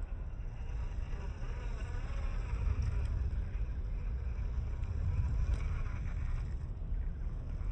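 Small electric motor and gearbox of a 1/24-scale Kyosho Mini-Z 4x4 RC crawler with a Furitek brushless system, whining thinly as the truck crawls, the pitch wavering up and down with the throttle. Under it is a steady low rumble, and there are a couple of faint clicks.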